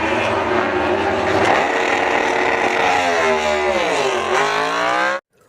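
Racing motorcycle engine revving, a loud dubbed-in sound effect. The engine note dips in pitch about four seconds in, climbs again, and then cuts off suddenly.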